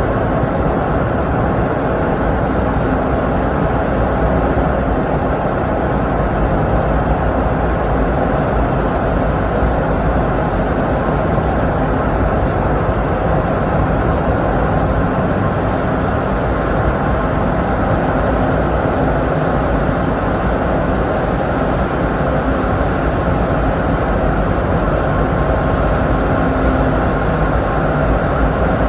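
Steady rumble of a car driving on the road, heard from inside the cabin.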